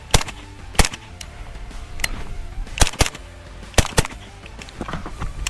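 Suppressed B&T GHM45 .45 ACP carbine firing six sharp shots, the last four in two quick pairs.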